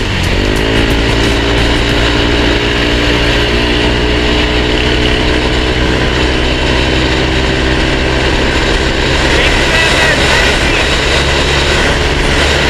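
Yamaha Aerox 155's single-cylinder four-stroke engine through a JVT V3 aftermarket exhaust at full throttle: its note climbs steeply in the first second, then holds nearly steady at high revs as the CVT scooter runs flat out for top speed. Heavy wind rush on the microphone runs underneath.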